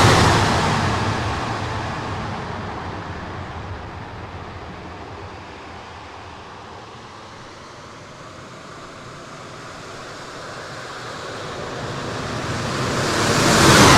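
Radio-controlled F-15 Eagle model jet making two close passes: a loud rushing whoosh that fades away after the first pass at the start, then builds again to a second loud pass at the end.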